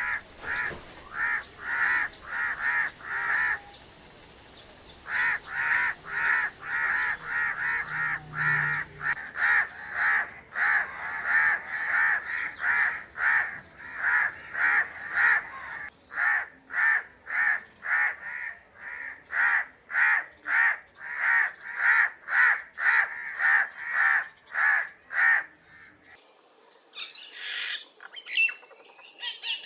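A crow cawing over and over in a steady series of harsh caws, about two a second, with a short pause early on. About 26 seconds in the cawing stops and a different, higher-pitched bird call takes over.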